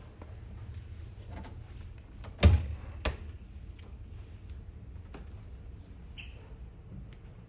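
A loud thud about two and a half seconds in, a lighter click just after, and brief high squeaks before and after, over a low steady rumble.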